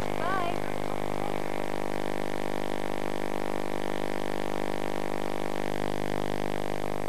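Background music holding one steady sustained chord, with a short wavering higher note just after the start.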